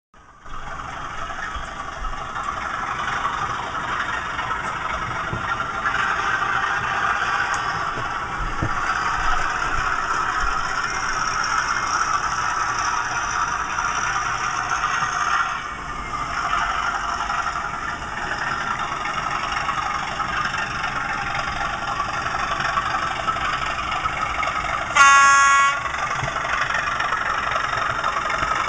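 DCC sound decoder in a model Class 37 diesel locomotive playing a recorded Class 37 engine sound through the model's small speaker as it runs, steady, with a brief dip in the middle. About 25 seconds in it sounds one short horn blast.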